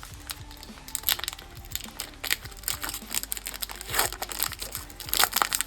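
Trading cards and a foil card-pack wrapper being handled, with crinkling and crackling plastic in quick, irregular bursts and the louder rustles about a second, four seconds and five seconds in.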